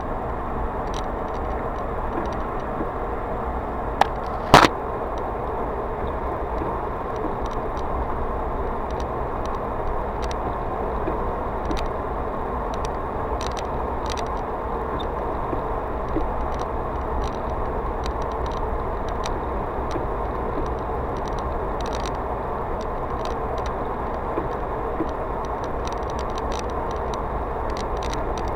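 Steady tyre and engine drone of a car driving on an open road, heard from inside the cabin, with scattered faint ticks. Two sharp clicks come a little over four seconds in, the second the loudest sound.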